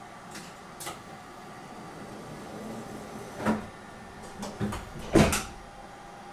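Several sharp knocks and thumps inside a JR Shikoku 8000 series express train car, over a steady electrical hum. Two light clicks come first, then louder thumps about three and a half, four and a half and five seconds in, the last the loudest.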